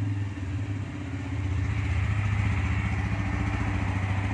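Bajaj Pulsar N160's single-cylinder engine idling steadily, with a fast, even firing beat.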